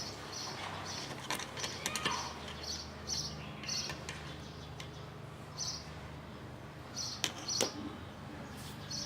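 Light clicks and taps of plastic filter-faucet parts being handled and fitted back together. Under them, a bird chirps over and over in the background, with a low steady hum.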